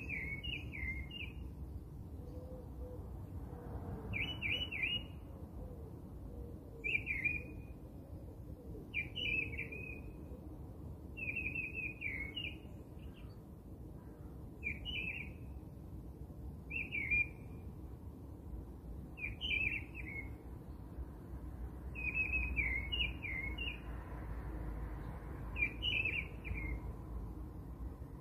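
A songbird singing short, quick chirping phrases, repeated about every two and a half seconds, over a faint low steady rumble.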